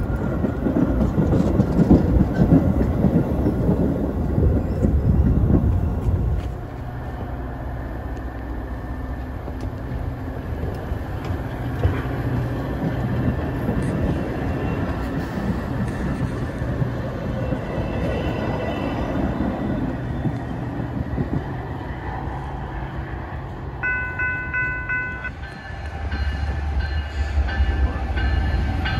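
Metra bilevel commuter cars rolling past close by with a loud rattling rumble of wheels and undercarriage for about the first six seconds, then a quieter steady rumble. Near the end a locomotive horn sounds one short chord, and a freight train's diesel locomotive rumble grows louder as it approaches.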